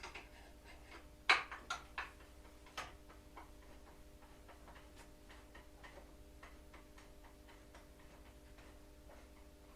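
Clicks and knocks of hand tools and parts while a motorcycle's air filter box is taken off: a few sharp knocks in the first three seconds, then a run of light, even ticks, about three a second, over a faint steady hum.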